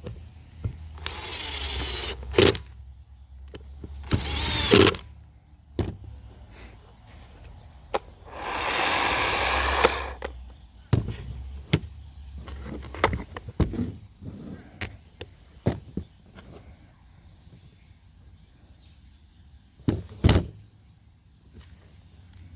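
Cordless drill driving screws in three short runs, the longest and loudest near the middle, its motor pitch shifting under load. Sharp clicks and knocks of plastic parts being handled come in between.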